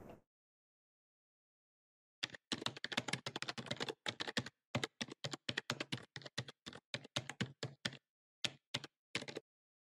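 Computer keyboard typing: a quick run of key clicks starting about two seconds in, thinning to a few scattered taps near the end.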